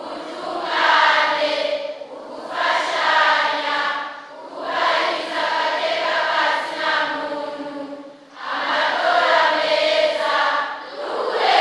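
A large group of young people answering together in unison, many voices chanting in several phrases with short breaks between them.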